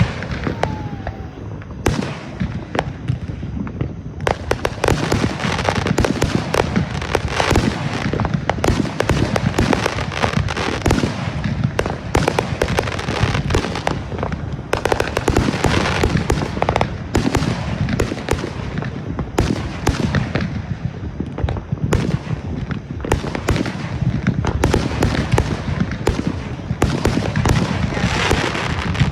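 Fireworks going off in rapid succession: a dense string of sharp bangs and crackles, sparser for the first few seconds, then nearly continuous.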